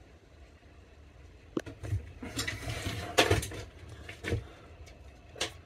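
Handling noise: a few sharp clicks and knocks with a rustling, scraping stretch in the middle, over a low rumble.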